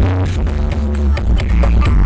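Loud electronic dance music with very heavy bass and a driving beat, blasted through a large carnival sound system during a sound check.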